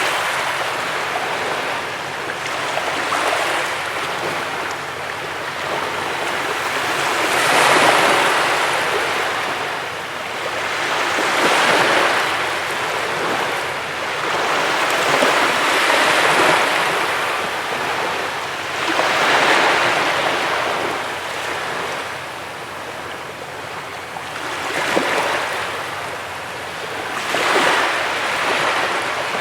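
Ocean waves breaking on a beach: a rushing wash of surf that swells and falls back every few seconds.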